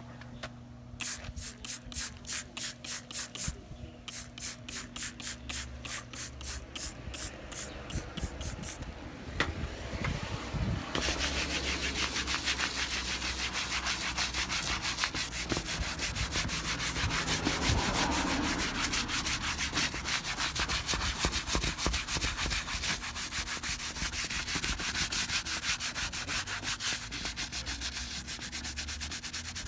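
Hand brush scrubbing a wet, soapy car door trim panel. Separate back-and-forth strokes, about two or three a second, for the first several seconds, then continuous fast scrubbing from about eleven seconds in.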